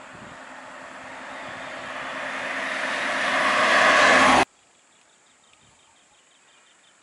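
Toyota van driving up and passing close by, its engine and tyre noise swelling steadily for about four seconds, then cut off suddenly. After that there is only a faint, even chirping.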